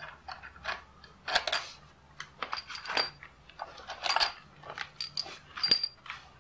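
Scattered light metallic clicks and clinks of hand tools and loose parts being handled on a motorcycle's exposed cylinder head and rocker gear, several with a short bright ring.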